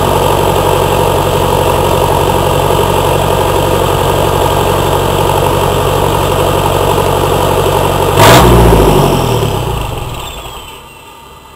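An engine idles steadily. About eight seconds in comes a sudden loud burst, then its pitch falls and it winds down to a stop over the last few seconds.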